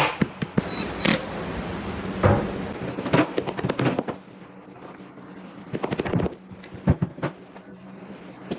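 Irregular knocks and clatters of cabinet parts being handled and fastened, with a short fast rattling run of clicks about six seconds in and another at the end.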